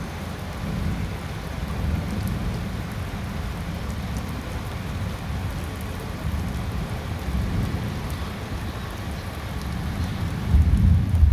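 Steady rain falling, with a low rumble underneath that grows louder near the end.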